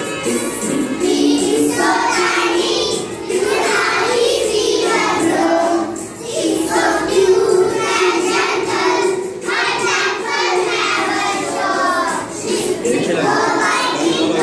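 A group of young children singing an English nursery rhyme together in short phrases, with brief breaks between lines.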